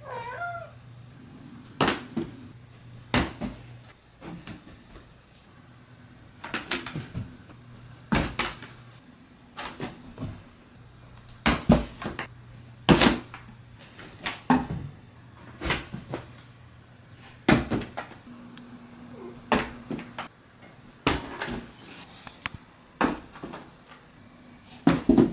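A cat gives a short meow at the start, then cardboard thumps and scuffs as the cat jumps into, lands in and climbs out of a cardboard box, a sharp knock every second or two.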